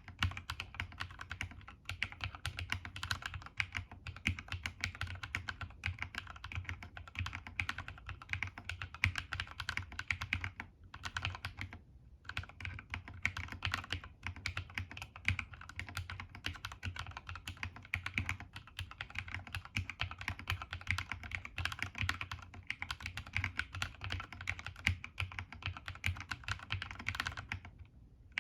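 Continuous typing on a plateless CSTC40 ortholinear keyboard with KNC Red Jacket 2.0 switches mounted straight into the PCB and DSA keycaps: a fast, dense stream of key clacks, broken by a few brief pauses.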